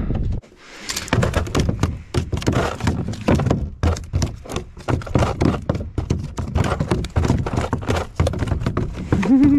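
Rapid, irregular thumps and taps of a just-landed smallmouth bass flopping against a plastic fishing kayak, running almost without a break after the first half second.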